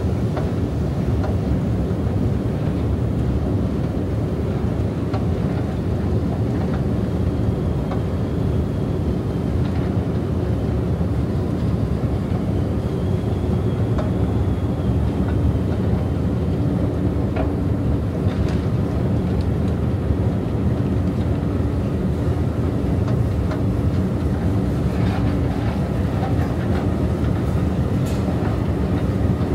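Subway-station escalator running, heard from on its moving steps: a steady low mechanical rumble with scattered clicks and clatter from the steps. A low steady hum comes in during the second half.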